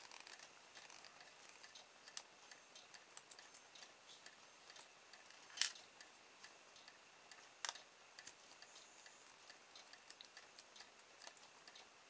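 Faint, scattered small clicks and ticks of a small screwdriver turning out the tiny case screws of a Tower Pro SG90 plastic micro servo, with two sharper clicks about halfway through and two seconds later.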